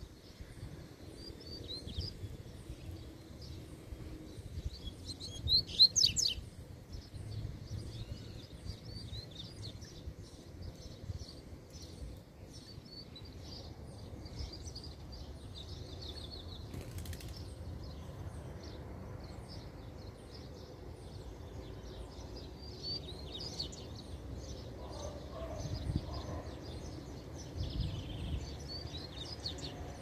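Double-collared seedeaters (coleiros) singing: repeated bursts of fast, high chirping song phrases, loudest about six seconds in, over a steady low background rumble.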